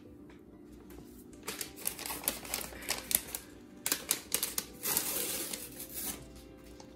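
Crinkling and crackling of a dry soup-mix packet being handled and opened, a quick run of sharp crackles that grows denser near the end.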